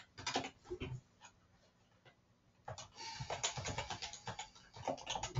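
Typing on a computer keyboard: a few keystrokes, a pause of about two seconds, then a quick run of keystrokes.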